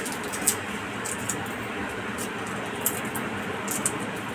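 Faint papery crackles of garlic skins being peeled off cloves by hand, a few scattered ticks over a steady background hiss.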